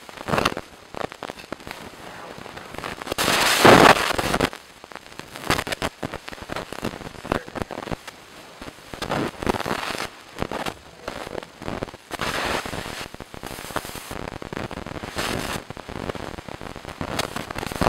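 Strawberry-cherry jam bubbling in a cast iron pot, a dense irregular popping and crackling, as a wooden spoon stirs it; it swells louder about three seconds in.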